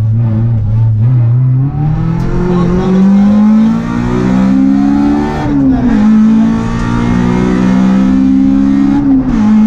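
Honda Civic 1.6 rally car's four-cylinder engine heard from inside the cabin, accelerating hard. It pulls up from low revs with the pitch climbing steadily, and the revs drop twice at upshifts, about halfway through and near the end.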